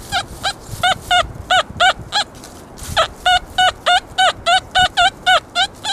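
XP Deus metal detector giving rapid, repeated high-pitched beeps as the coil is swept back and forth over a buried target, about four or five beeps a second with a short break a little past two seconds in. It is a strong, repeatable signal from a good conductive target, reading about 83 to 87 on the detector's target ID.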